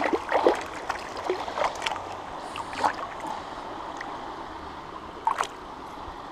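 Hooked trout thrashing and splashing in shallow river water, with irregular splashes through the first three seconds and one more sharp splash about five seconds in, over the steady rush of the river.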